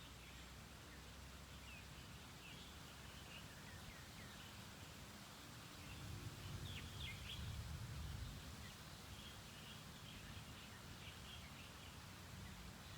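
Birds chirping faintly and repeatedly over a soft, steady outdoor hiss, with a low rumble that swells about halfway through.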